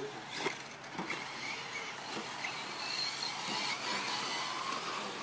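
Electric 4WD short course RC trucks racing on a dirt track: faint, shifting whine of their electric motors rising and falling as they accelerate and brake, over a steady hiss.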